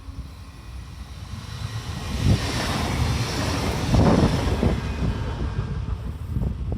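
DB class 426 electric multiple unit passing: a rush of train noise that swells about two seconds in, is loudest in the middle and then eases off, with wind buffeting the microphone.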